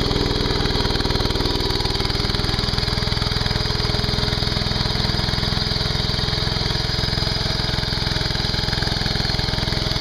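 Ditch Witch SK300 mini skid steer's engine running steadily, close by.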